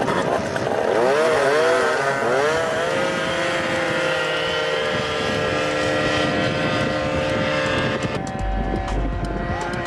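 Tuned two-stroke scooter engines at full throttle in a drag run. The revs rise and dip over the first few seconds, then hold at one high, steady pitch. A low wind rumble on the microphone joins near the end.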